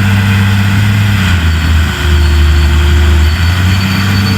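Heavy diesel engine of earthmoving machinery running steadily. About a second in its pitch drops, and it comes back up about two seconds later.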